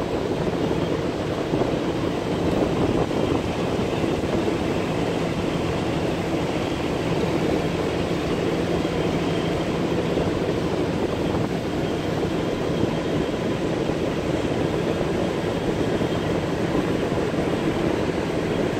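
Passenger motor boat's engine running steadily under way: an even drone with a faint low steady hum beneath it.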